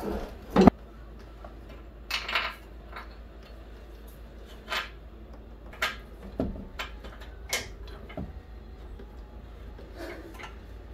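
Scattered clanks and clicks of metal tools and car parts being handled and set in place, about a dozen over the stretch, the loudest knock under a second in, over a low steady hum.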